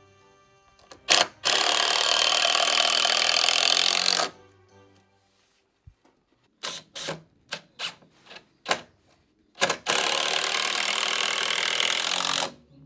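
A power tool run in two long bursts of about three seconds each, with a string of short trigger blips between them. Faint background music underneath.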